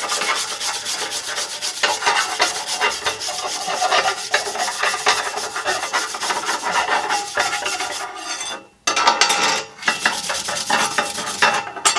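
Wire brush scrubbing a hand-forged steel fire poker in rapid back-and-forth strokes, a harsh steady rasping: the final clean-up brush of the finished forging. The brushing stops briefly about two thirds of the way through, then carries on.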